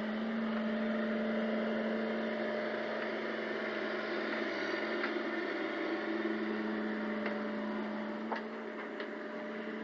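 Small excavator's engine running at a steady pitch, with a few faint knocks.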